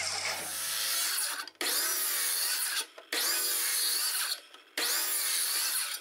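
Handheld circular saw cutting into a timber beam, making a row of kerfs to clear waste from a tenon. The cutting comes in four runs of about a second and a half each, with short near-silent breaks between them.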